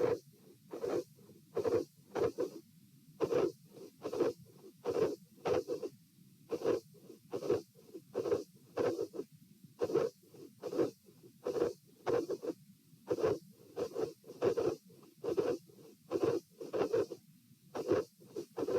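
Heart sounds heard through a stethoscope over the pulmonic area: paired lub-dub beats at a steady rhythm of about 72 a minute. This is a heart with a dilated aortic root, which the uploader describes as having midsystolic murmurs.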